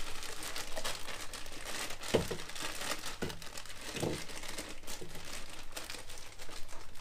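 Crinkling and rustling with irregular light clicks as plastic crankcase-ventilation hoses and connectors are handled and pushed into place, with a few short duller knocks about two, three and four seconds in.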